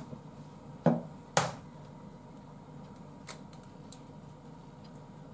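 A raw egg knocked sharply a few times against a hard edge to crack it, the loudest two knocks about a second in, followed by faint clicks as the shell is pulled apart over a glass.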